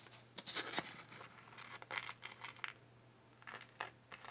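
Packaging rustling and crinkling in several short bouts as earrings are handled and set out.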